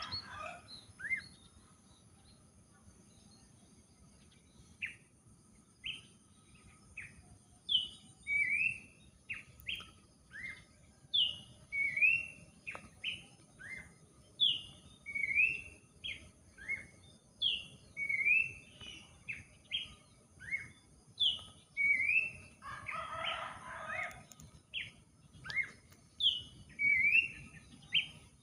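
A babbler (Malay pelanduk semak) singing: short clear whistled notes and slurred phrases, repeated about once a second, sparse at first and then steady. A brief, rougher, noisier sound cuts in about two-thirds of the way through.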